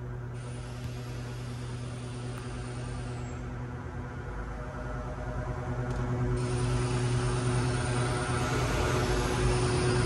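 Plant compressed air hissing from a blow gun as it blasts dirt out of an air conditioner's condenser coil. The air stops about three seconds in and comes back on about six and a half seconds in, louder. A steady machinery hum runs underneath.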